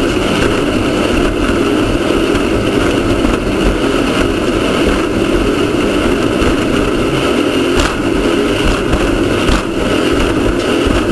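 Off-road race car's engine running steadily and loudly, mixed with dense vehicle noise, with two sharp knocks late on.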